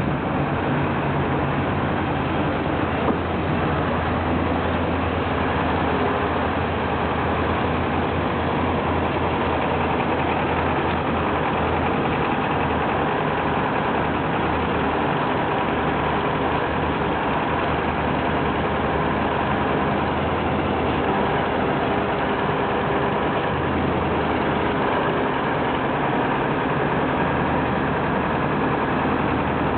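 Heavy diesel engine of old Soviet earthmoving machinery running steadily at an even speed.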